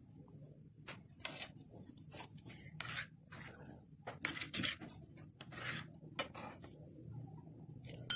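Metal spoon scraping and cutting through jelly pudding on a steel plate, in short irregular scrapes, with one sharp clink at the very end.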